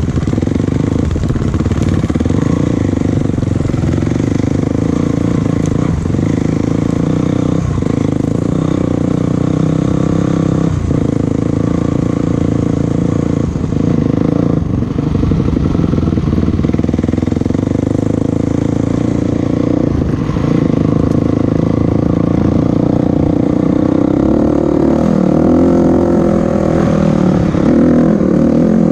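A motor vehicle's engine running steadily while driving, its pitch rising and falling in the last few seconds as the revs change.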